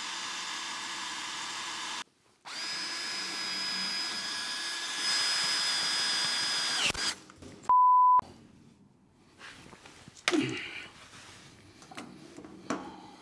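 Power drill-driver running in two steady runs, the second longer, backing out the fasteners at the bottom of a stainless tank's outer cover panel. A short, loud pure beep follows about eight seconds in, then a few knocks and clatter of handling.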